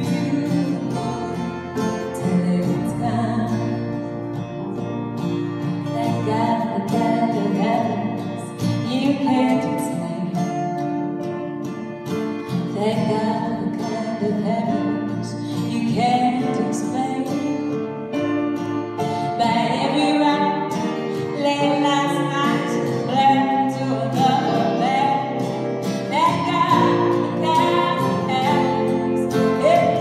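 Live band playing a song: a woman singing lead over guitars and electric bass.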